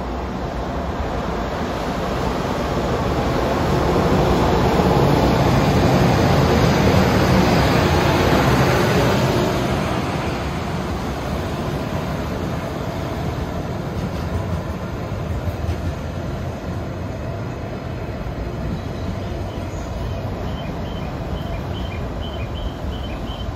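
A JR Freight EH200 electric locomotive hauling two railway crane cars and a flat wagon past at speed: a heavy rumble of motors and wheels on the rails that swells to its loudest as the locomotive goes by, then eases into the steadier roll of the passing cars.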